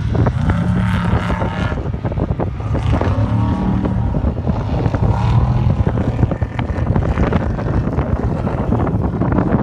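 Off-road truck engine revving hard and unevenly, its pitch rising and falling as the throttle is worked.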